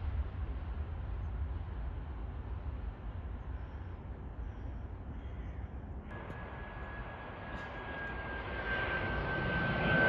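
A jet airliner approaching, with a steady high engine whine and rushing noise that grow louder over the last few seconds. Before that there is a low rumble, which changes abruptly about six seconds in.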